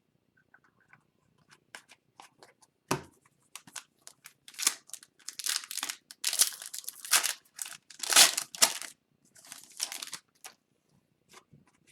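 Foil hockey card pack wrappers being torn open and crinkled, with cards handled and flicked. There are scattered small clicks, a single sharp knock about three seconds in, and a run of rustling and tearing in the middle.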